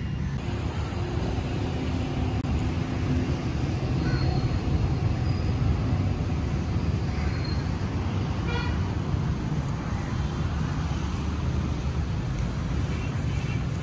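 Steady city road traffic rumble with occasional short vehicle horn toots.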